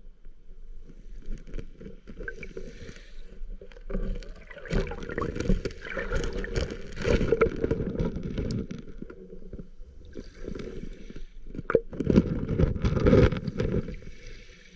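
Shallow lake water surging back and forth over a cobble bed, heard through a camera held underwater: a muffled rushing that swells twice, with many sharp clicks and knocks running through it.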